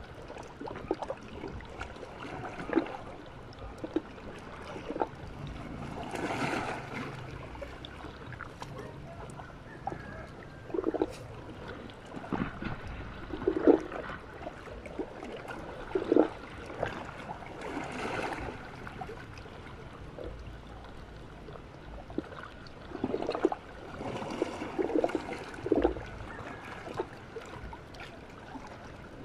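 Small sea waves lapping and splashing against shore rocks, coming in irregular washes every few seconds.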